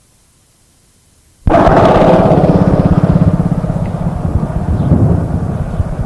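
Tape hiss, then about a second and a half in the loud drone of a propeller airliner low overhead on approach cuts in suddenly, its engines beating in a rapid, even pulse that slowly eases off.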